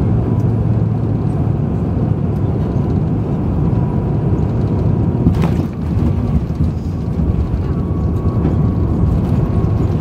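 Steady cabin rumble of an Airbus A350 coming in to land: airflow over the wing and its Rolls-Royce Trent XWB engines, with a faint steady whine. A single short click about five seconds in.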